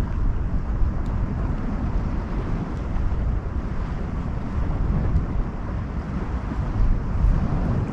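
Wind buffeting the microphone: a steady low rumble that swells and eases a little.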